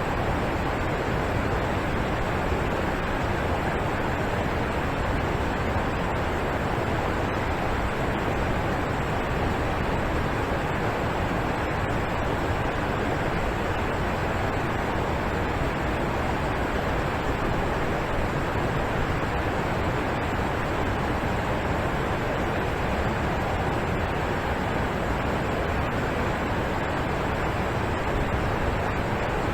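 Alpine waterfall rushing steadily: water falling and crashing in an even, unbroken roar of noise.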